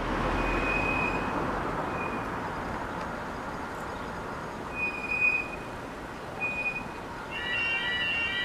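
A train running past, its noise slowly fading, with a short high tone sounding four times. Music starts near the end.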